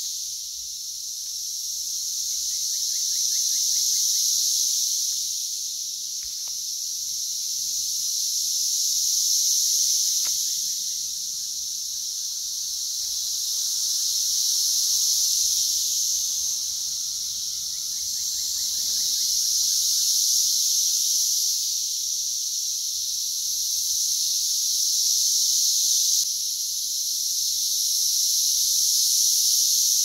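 Brood X periodical cicadas singing in a dense chorus: a loud, high-pitched drone that swells and fades every five or six seconds.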